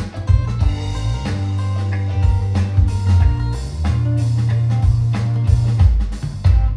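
Music with a heavy, held bass line and drum hits, played back through hi-fi floorstanding speakers with a 12-inch active PA subwoofer adding the deep bass.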